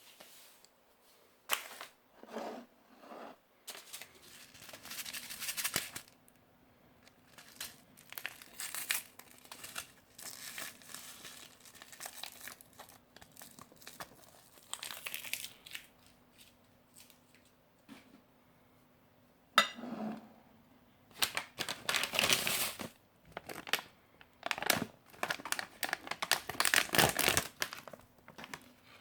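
Plastic and foil ration packaging being handled, crinkled and torn open, in irregular bursts of rustling with short pauses between them. The busiest stretch comes in the last third.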